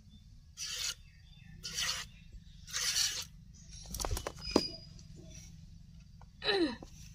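Cow being milked by hand into a plastic bowl: three hissing spurts of milk about a second apart, then a few sharp knocks as the cow moves its hind leg, and a last hissing spurt with a short falling squeak near the end.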